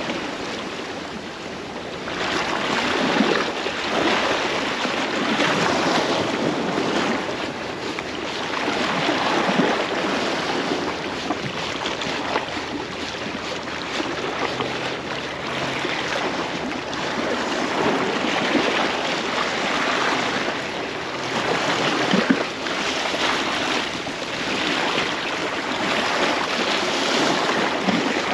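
Sea waves washing against a rocky shoreline, swelling and easing every few seconds, with wind buffeting the microphone.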